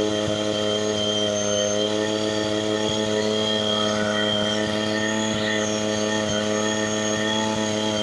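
An engine running steadily at a constant speed, a droning hum that holds one pitch.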